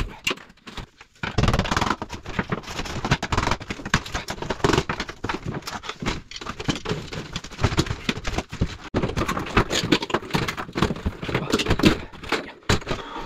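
Metal-framed shower enclosure being wrenched free from the wall and tray, its aluminium frame and panels rattling, knocking and scraping in a dense, irregular run of clatter as it tears away from the silicone that held it.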